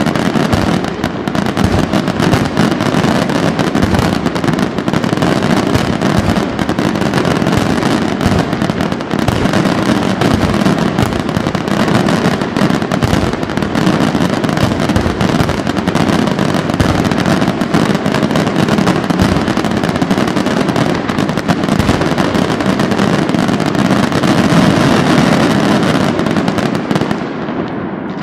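Fireworks display firing in a dense, unbroken barrage of rapid bangs and crackling, dying away near the end.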